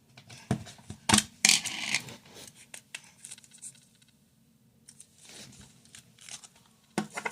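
Plastic slime container being pried open: a few sharp clicks and short scraping, tearing noises, the loudest about a second and a half in and again near the end.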